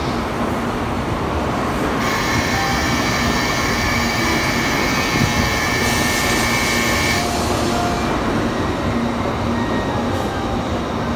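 N700S Shinkansen train pulling in along the platform and slowing to a stop, a steady rumble of the cars passing close by. A high, steady whine starts about two seconds in and cuts off suddenly about seven seconds in.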